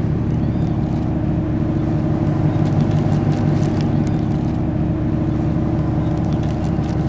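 Steady engine drone: a constant low hum with a few fixed tones, unchanging throughout.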